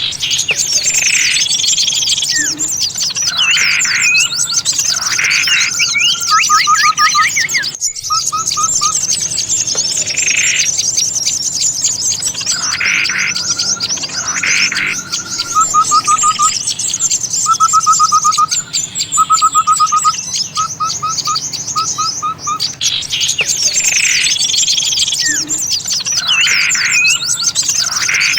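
A bird-lure recording of small songbirds chattering in dense, high, rapid chirps, with short runs of lower repeated notes every few seconds. It is a loop: the same sequence comes round about every twelve seconds, with a brief break near eight seconds in.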